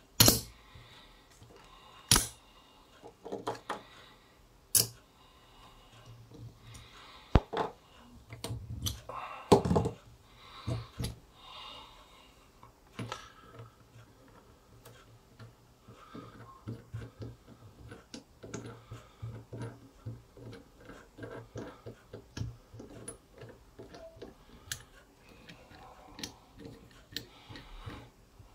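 Sharp metal clicks and knocks as a steel eyebolt is handled against a double-sided neodymium fishing magnet, then, from about halfway through, a long run of small quick clicks as the eyebolt is screwed into the magnet's threaded hole.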